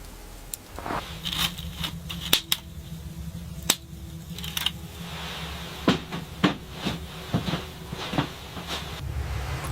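Irregular sharp clicks and knocks, a dozen or more, over a low steady hum.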